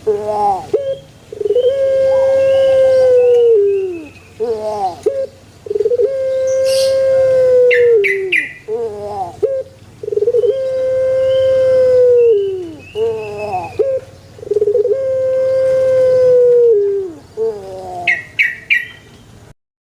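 A puter (Barbary dove) of the pelung type cooing: four long drawn-out coos, each about two seconds, each introduced by a few short bent notes. Brief high chirps come in about eight seconds in and again near the end.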